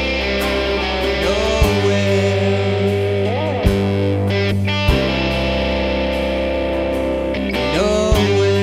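Rock band playing an instrumental passage live: electric and acoustic-electric guitars, electric bass and a drum kit, with sustained chords, a melody line that bends up and down in pitch a few times, and occasional accented drum hits.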